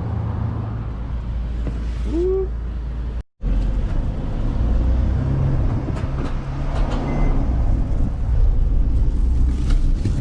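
A vehicle engine running steadily, then, after a cut, a freshly built motorcycle's engine running on its first start-up. It gets a little louder about five seconds in, and degreaser is burning off its heads.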